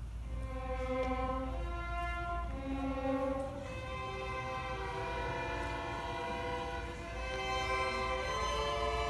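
A string orchestra of violins, cellos and double basses playing a slow melody in long held notes, with a steady low rumble underneath.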